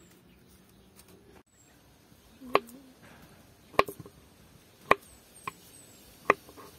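A kitchen knife cutting through a peeled banana and knocking on a wooden cutting board: about five sharp single knocks at irregular intervals of roughly a second, starting about two and a half seconds in.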